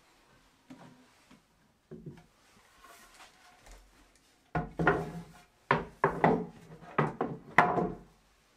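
Oak desk-top panels handled and laid onto a wooden desk frame: a few soft knocks at first, then from about halfway a run of louder wooden knocks and scrapes as the boards are set down and shifted into place.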